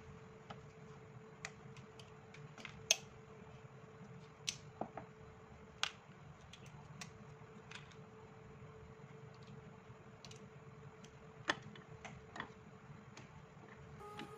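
Hand-worked arbor press and slug mold: scattered sharp clicks and taps at irregular intervals as the ram, mold and lead slugs are handled, over a faint steady hum.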